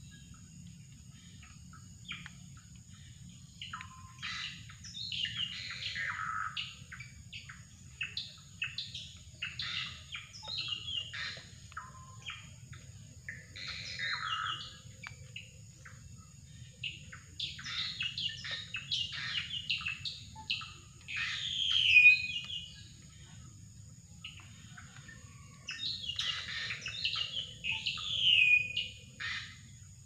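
Drongo (srigunting) song: phrases of quick, varied chirps and whistles coming in bursts with short gaps, several notes sliding downward, the loudest phrase about two-thirds of the way through.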